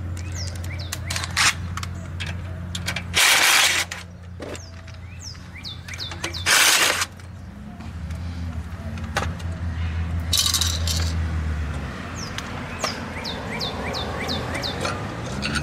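Cordless DeWalt driver whirring in three short bursts, the third weaker, as fasteners on the VW Type 3 engine's cylinder-head side are run out, with light metallic clinks of parts and tools between and a steady low hum underneath.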